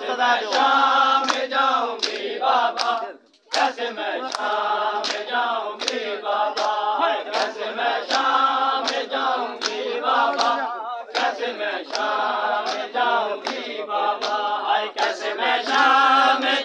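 Men chanting a Muharram mourning lament in chorus, kept in time by steady, evenly spaced slaps of matam, hands beating on bare chests in unison. The chanting and slapping break off briefly about three and a half seconds in, then resume.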